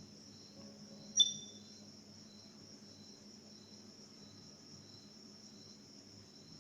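Crickets chirping faintly in the background: a steady high trill with a softer chirp pulsing about twice a second. About a second in there is one short, sharp click.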